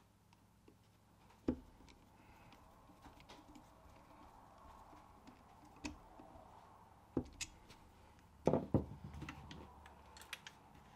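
Sparse light clicks and taps of a screwdriver bit turning screws into an aluminium handguard, with a few louder knocks together about eight and a half seconds in.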